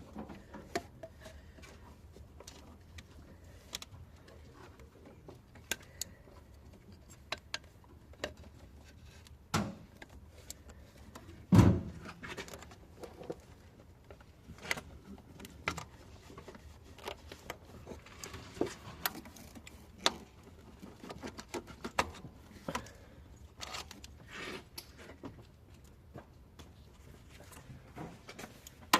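Scattered light clicks and knocks of hand tools and parts being handled during a thermostat replacement on a Peugeot/Citroën petrol engine, with one heavy thump about twelve seconds in.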